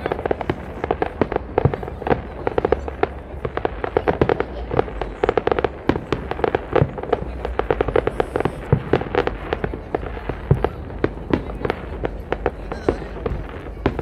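Fireworks display going off as a dense, continuous run of pops and crackles, many sharp reports a second with no break.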